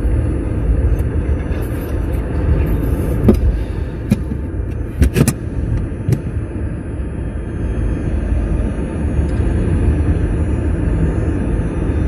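A Nissan Leaf 30kWh driving, heard from behind the rear seat at the battery access cover: steady road and tyre rumble, with a few short knocks or rattles, the loudest a quick pair about five seconds in.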